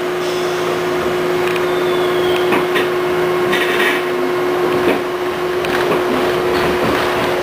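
Westinghouse R68 subway train pulling out of a station: a steady hum with one unchanging tone, growing a little louder, with scattered knocks and clatters as the cars get moving.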